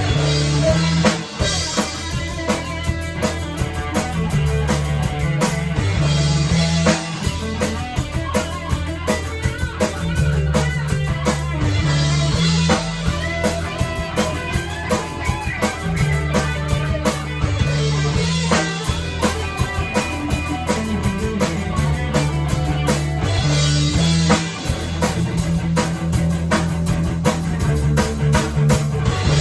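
Rock band playing: guitar over a drum kit with a steady driving beat and a repeating bass line.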